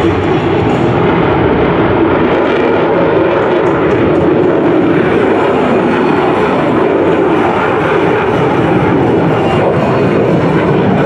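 Loud, steady jet noise from a Boeing F/A-18E/F Super Hornet's twin General Electric F414 turbofans as the fighter flies a demonstration pass overhead.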